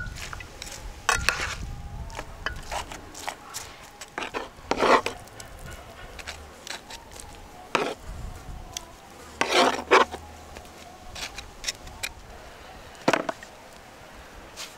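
Metal tongs scraping and tapping on a wooden cutting board and into a bread roll while scooping shredded roast beef. Irregular small clicks and scrapes, with a few louder, longer scrapes about five and ten seconds in.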